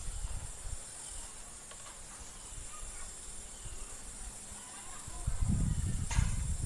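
Steady high chirring of insects, with faint ticks and a low rumble that grows louder about five seconds in.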